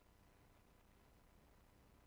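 Near silence: only a faint, steady hiss and low hum of background noise.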